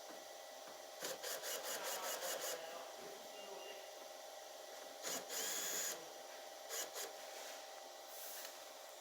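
Tool work on a car door: a quick run of rattling clicks about a second in, a short whirring burst about five seconds in, then two clicks.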